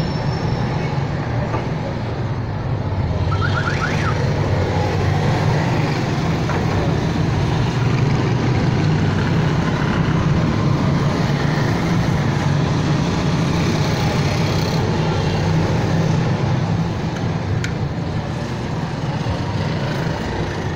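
A motor vehicle engine running steadily, a constant low hum with no revving.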